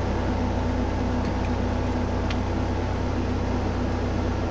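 Steady machine hum at an even level, with two faint light clicks about one and two seconds in.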